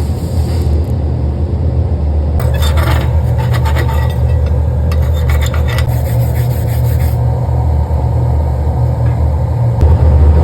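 Stick-welding arc from a Fronius AccuPocket 150/400 crackling in two stretches, over a loud steady low hum.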